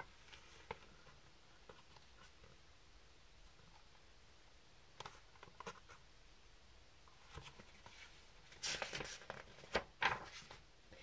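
Paper pages of a picture book being handled: a few faint taps and short rustles, then a cluster of louder rustles as the book is lowered and a page is turned in the second half.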